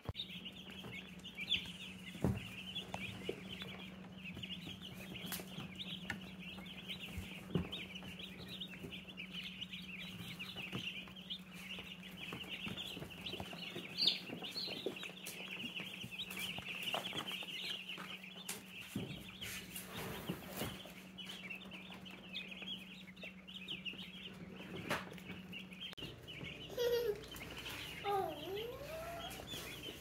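A brooder crowded with baby chicks and turkey poults peeping all at once, a dense, continuous high-pitched chorus. A steady low hum runs beneath it and cuts off about four seconds before the end.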